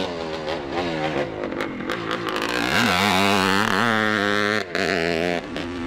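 The single-cylinder two-stroke engine of a 1971 Suzuki TM400 Cyclone motocross bike revving hard and falling back as it is ridden round a dirt track. The revs climb highest and loudest near the middle, with a brief break about four and a half seconds in.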